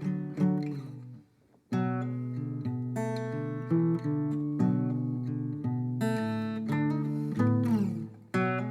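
Acoustic guitar music: plucked and strummed notes that each ring and fade, with a brief break a little over a second in and a sliding note falling in pitch near the end.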